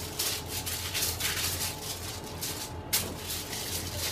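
Crumpled aluminium foil crinkling under the hands as soft dough is rolled back and forth on it, in short rustles about three a second, over a faint steady low hum.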